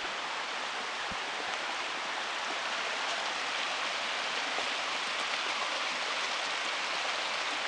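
Shallow, rocky creek running over stones: a steady rush of water, a little louder after a couple of seconds.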